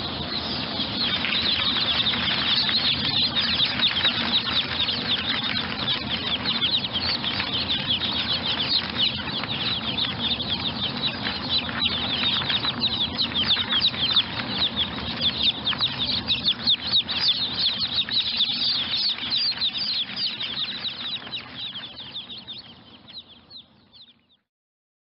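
A brood of baby chicks peeping all at once, a dense stream of many overlapping high, quickly falling chirps. It fades out over the last few seconds and stops.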